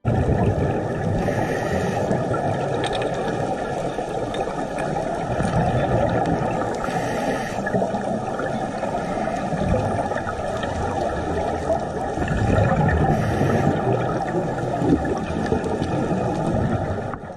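Underwater sound as picked up among scuba divers: a steady, deep rush of water noise, with three brief hissing bursts about six seconds apart, typical of a diver's regulator exhaling bubbles.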